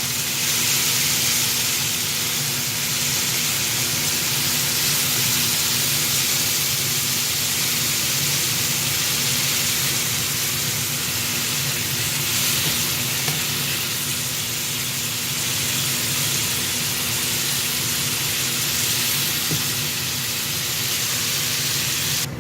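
Chicken pieces searing in a hot frying pan, a steady sizzle that cuts off suddenly near the end.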